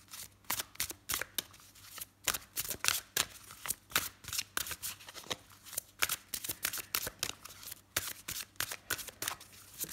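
A thick deck of oracle cards being shuffled by hand in an overhand shuffle: a run of quick card slaps and flicks, several a second, with a couple of brief pauses.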